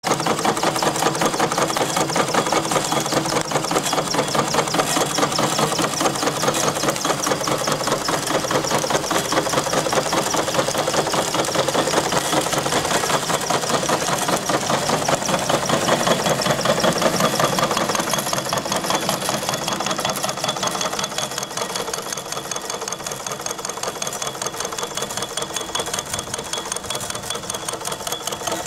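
Quarter-scale live steam donkey engine running, its twin small horizontal steam engines chuffing and clattering in a rapid, even beat. The sound grows a little quieter after about eighteen seconds.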